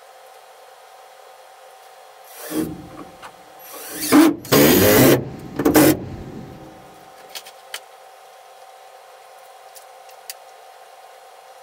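A tool working the camper's wooden wall framing, with a harsh noise of wood being worked: a short burst about two and a half seconds in, then a louder stretch of about two seconds from around four seconds in, followed by a few light clicks.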